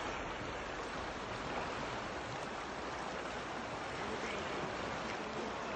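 Fast-flowing river water rushing past, a steady, even noise.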